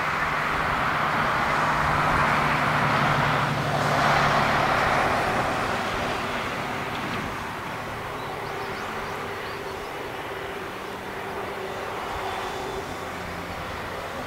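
Airbus A380-861's four Engine Alliance GP7270 turbofans at takeoff thrust during the takeoff roll: a loud, rushing jet roar that peaks about four seconds in and then slowly fades as the airliner moves away down the runway.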